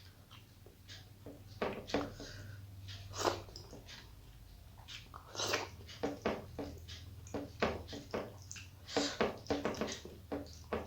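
A person chewing and smacking a mouthful of rice and fish curry close to the microphone: an irregular run of short, wet mouth clicks, with a low steady hum underneath.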